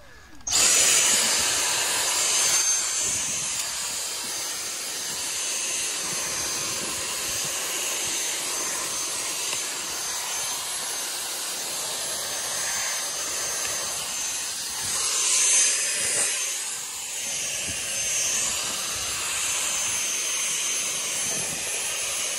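Vacuum cleaner running steadily with a high rushing whine, swelling briefly about fifteen seconds in.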